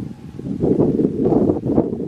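Wind buffeting the microphone: a loud, gusty rumbling noise, stronger from about half a second in.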